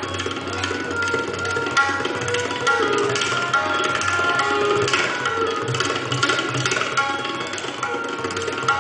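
Tabla played in a rapid, continuous run of strokes imitating the sound of a moving train.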